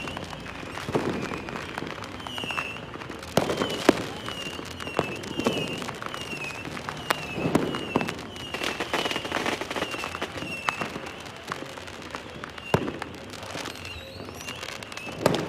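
Fireworks going off: irregular sharp bangs and crackles with low booms, the loudest about four seconds in and just before the end. A short high chirp repeats steadily in the background.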